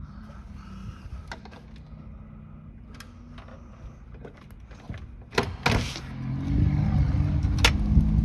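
McLaren 570S twin-turbo V8 driving away: a low, steady engine hum at first, then from about six and a half seconds in it gets much louder and rises in pitch as the car accelerates. A couple of sharp clacks come a little after five seconds.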